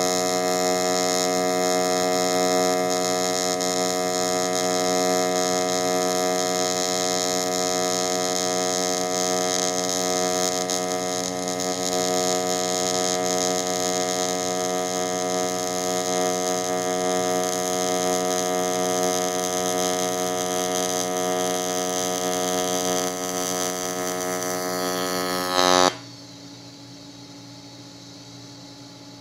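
AC TIG welding arc on aluminum pipe during the root pass: a steady, loud buzz made of many stacked tones. Near the end the arc drops in pitch, gives a brief loud burst and cuts off suddenly, leaving low background noise.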